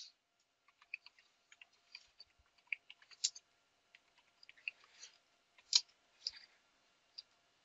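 Faint, irregular clicks of computer keyboard keys being typed, a few keystrokes a second with short pauses between.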